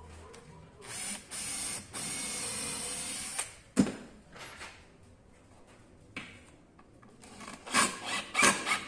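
Two short runs of a small power tool cutting wood, the second about a second and a half long, then a sharp knock and a few clicks and taps as the work is handled.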